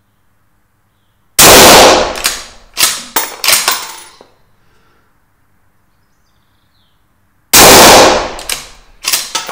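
Two suppressed shots from a Savage 110 Storm bolt-action rifle in 6.5 Creedmoor, about six seconds apart. Each shot is followed by a few sharp metallic clacks as the bolt is worked and the spent case is ejected.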